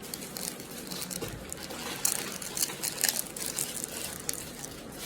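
Small plastic blind-bag package crinkling and crackling irregularly as it is opened by hand.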